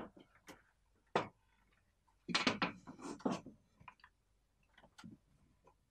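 Chalk scraping and tapping on a blackboard as a line is drawn along a ruler, with the ruler knocking against the board as it is set down and moved: a scatter of short clicks and a longer scrape a little over two seconds in.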